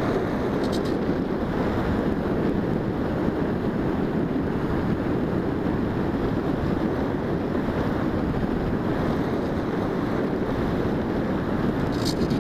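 Steady wind rushing over the microphone of a camera mounted on a Bixler 1.1 foam RC plane in flight.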